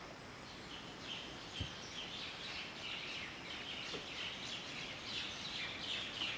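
Forest ambience of birds chirping over and over in high, quick calls, with one soft low thump about a second and a half in.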